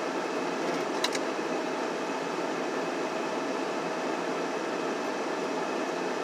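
Steady whir of a car's heater fan running inside the cabin, with a single short click about a second in.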